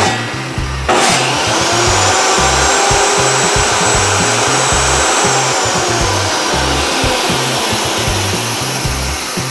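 DeWalt DW744 table saw and a shop dust collector started together about a second in from a single paddle switch, then running together. The saw motor's high whine rises as it spins up and slides down again after about five seconds.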